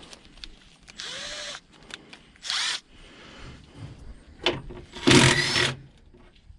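A power drill running in three short bursts, the last the loudest, each spinning up and down in pitch, as it drives out fasteners holding a car's front panel. Small clicks of the tool and parts come between the bursts.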